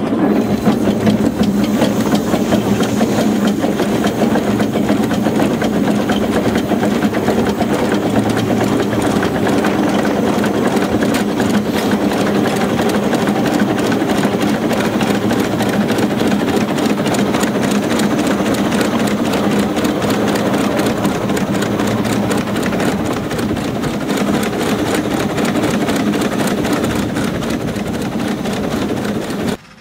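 Small narrow-gauge steam locomotive running along the track, heard from on board: a loud, steady, fast mechanical clatter from the engine and its wheels that cuts off suddenly near the end.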